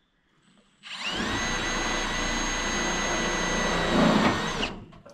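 Power drill driving a screw into the carport's sheet-metal roof panel. The motor spins up about a second in and runs steadily for several seconds. It gets louder near the end as the screw bites and seats, then stops suddenly.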